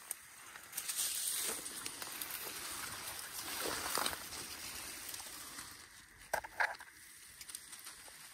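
Footsteps and rustling over dry, rough ground, swelling and fading unevenly, with two sharp clicks about two-thirds of the way in.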